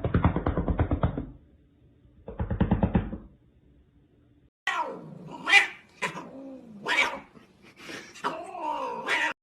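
An angry domestic cat growling twice in low, rapid pulses, then yowling in drawn-out calls that rise and fall in pitch.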